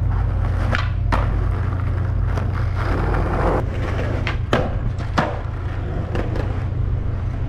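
Skateboard wheels rolling over asphalt and concrete with a steady low rumble, broken by a few sharp clacks.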